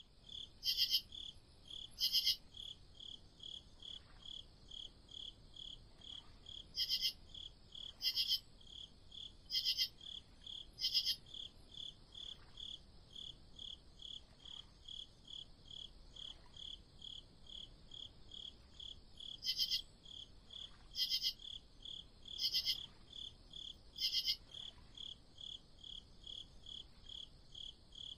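Crickets chirping at night: a steady chirp about twice a second, with louder, brighter chirps coming in clusters about a second or two apart.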